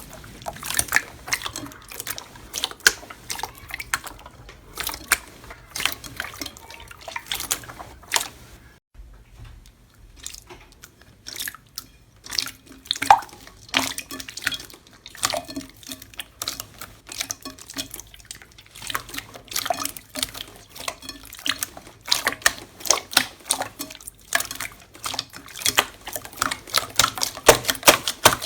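Slime being squished and kneaded by hand, a dense run of wet clicks and pops, with a quieter lull from about nine to twelve seconds in.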